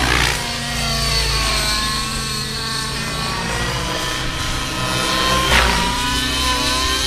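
Align T-Rex 700N nitro radio-controlled helicopter flying 3D aerobatics: its glow engine and main rotor give a steady, high engine whine with rotor noise. The pitch slides up and down throughout, with two sharp swings up and back down, just after the start and about five and a half seconds in.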